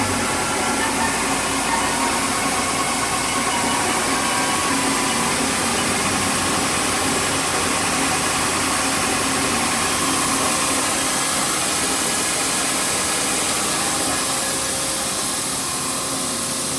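Mori Seiki SL-35B CNC lathe running: a steady machine hum with several even whining tones.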